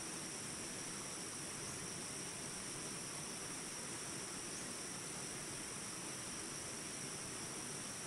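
Steady flowing water, an even rushing hiss, with a constant high-pitched tone over it.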